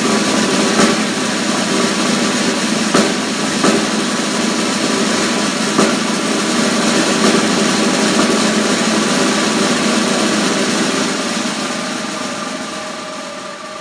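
Snare drum roll played with sticks, a steady buzzing roll with a few accented strokes in the first six seconds, then fading away in a long diminuendo over the last few seconds.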